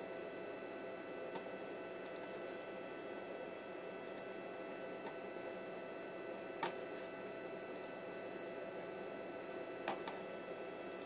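Steady electrical hum with several thin, steady whining tones over it. Two short clicks, about six and a half seconds in and again near the end, from a computer mouse.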